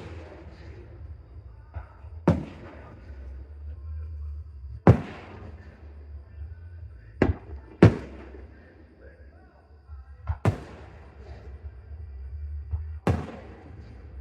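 Aerial fireworks shells bursting: six sharp bangs, spaced about two and a half seconds apart with two in quick succession midway, each trailing off in an echo.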